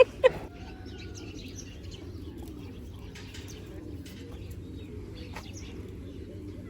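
Birds cooing in a low wavering murmur, with scattered faint chirps; two short loud sounds right at the start.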